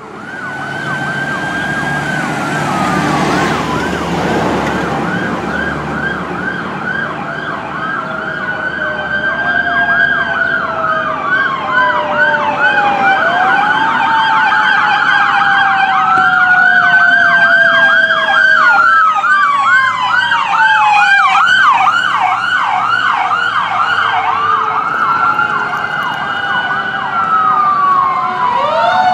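Sirens of responding fire apparatus, a battalion chief's Ford F-250 and a fire engine, sounding together. Rapid yelp cycles run over slow rising-and-falling wails, and a lower tone glides slowly down. The sirens grow louder as the vehicles approach.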